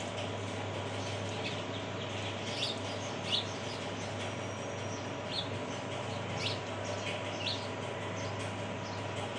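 Small birds chirping, several short high chirps spaced a second or so apart, over a steady hiss and low hum.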